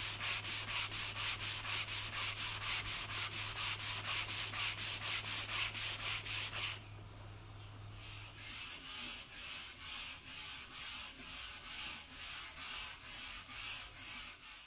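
Sandpaper on a hand sanding block rubbed back and forth along a softwood board in quick, even strokes, about three a second. About seven seconds in the strokes stop briefly, then resume quieter and a little slower.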